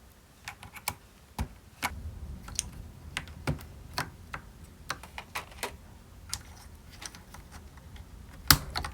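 Thick PBT MT3-profile keycaps being pushed onto the switch stems of a mechanical keyboard: irregular sharp plastic clicks and clacks, about one or two a second, with a louder clack near the end.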